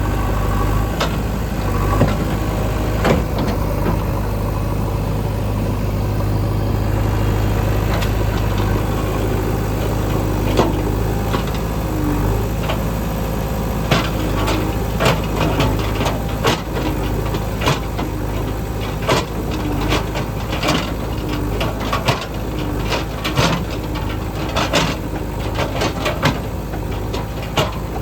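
Heavy diesel construction machine engine running steadily, with many sharp knocks and clatters coming irregularly through the second half.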